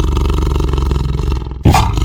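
A loud, low, rasping animal call made of rapid pulses, breaking off briefly near the end and then starting again.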